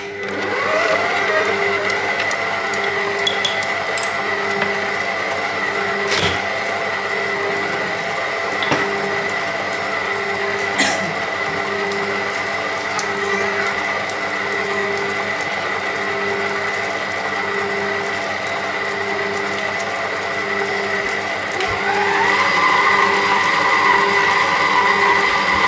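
Stand mixer motor running steadily as its dough hook kneads bread dough, with a faint beat about once a second. About 22 seconds in the whine rises in pitch and gets louder as the mixer is turned up a speed.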